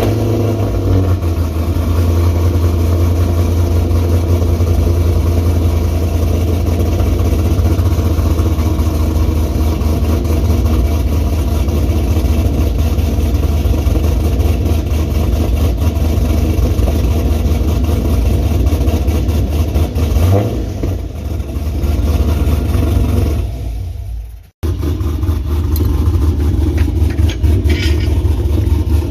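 2010 Chevrolet Camaro SS's 6.2-litre V8 running steadily just after start-up, a deep low rumble. It cuts out for an instant about three-quarters of the way through, then carries on as before.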